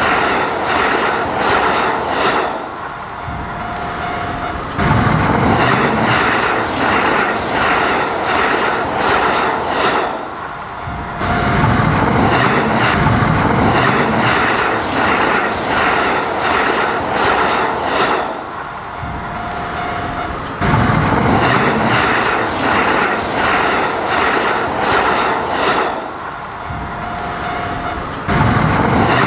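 Train running on rails with a rapid, regular clicking; the sound swells and eases in a cycle that repeats about every eight seconds.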